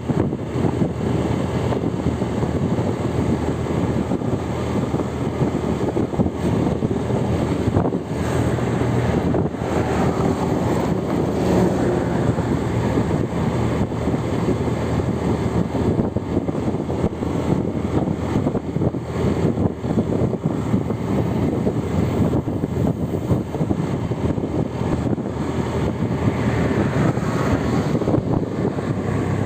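Steady rumble of road vehicle noise with wind buffeting the microphone.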